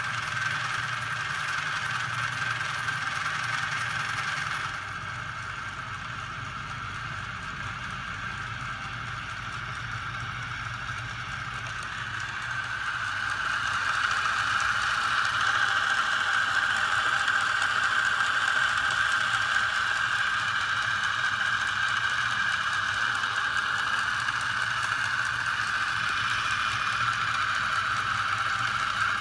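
Small 12 V electric motor driving a homemade magnet crankshaft machine with a flywheel, running steadily with a whirring whine. It turns quieter about five seconds in and grows louder again from about thirteen seconds on.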